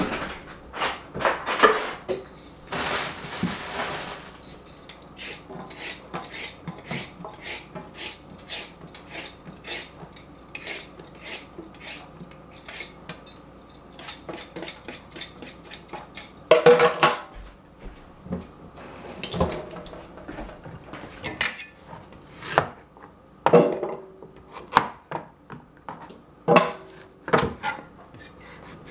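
A carrot being peeled over a steel sink: a long run of short, quick scraping strokes, about three a second. About halfway through it gives way to scattered louder knocks and clacks, and near the end a cleaver chopping the carrot on a plastic cutting board.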